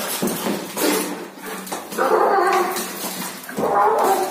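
Two domestic cats fighting: scuffling, then loud screeching yowls, one about halfway through and another near the end.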